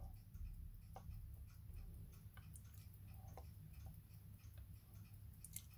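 Faint, rapid, even ticking of a mechanical wristwatch, the Poljot 3133 chronograph held close to the microphone. Two slightly louder clicks come about a second in and about three and a half seconds in.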